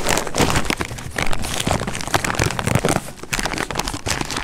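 Plastic bag crinkling and rustling as it is handled: a dense, irregular run of crackles.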